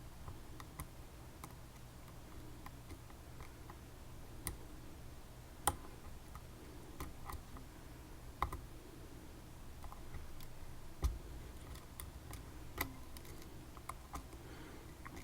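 Small, irregular metal clicks of a lock pick working the pins inside a dimple lock cylinder, a few of them sharper than the rest.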